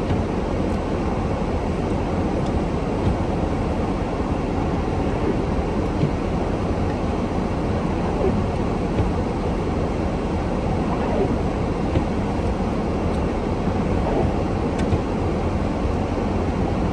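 Steady low rumble and hiss of a vehicle in motion, typical of road noise, with a few faint ticks.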